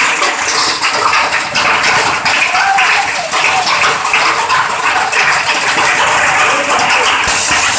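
Heavy rain mixed with hailstones striking hard surfaces: a loud, dense hiss with many sharp ticks from hailstones hitting.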